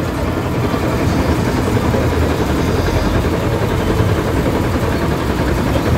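A crane's engine running steadily while its hook block hangs on wire ropes in the drain, lifting slabs out.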